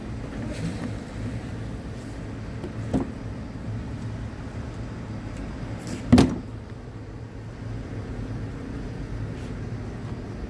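Steady low vehicle rumble, with a short knock about three seconds in and a louder thump a little after six seconds in.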